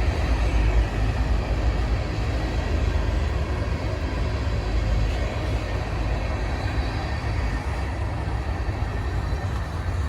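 Norfolk Southern freight train rolling past, a steady low rumble of wheels and cars with no horn.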